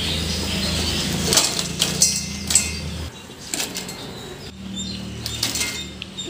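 Crisp fried thattu vadai clattering into a stainless-steel colander: a scatter of sharp rattles and clinks. A low steady hum runs underneath and stops about three seconds in.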